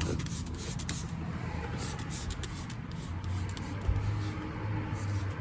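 Scattered short hissing and rubbing sounds as black fabric dye is applied and worked into a car's carpet. A low steady hum joins about three seconds in.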